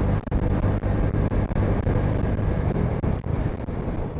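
Bajaj V15 motorcycle's 150 cc single-cylinder engine running steadily while riding, with wind noise on the microphone.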